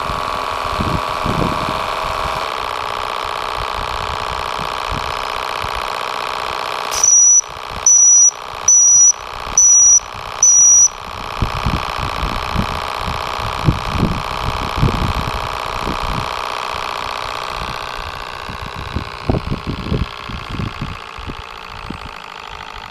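Model Q series V-twin steam engine running steadily. About seven seconds in come five short, loud, high-pitched tones roughly a second apart, and the running sound fades over the last few seconds.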